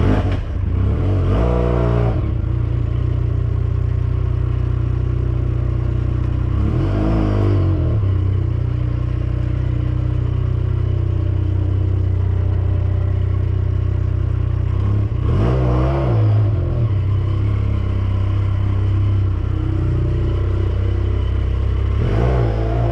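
Benelli 302S motorcycle's parallel-twin engine running while riding, its revs rising and falling about four times, as with gear changes.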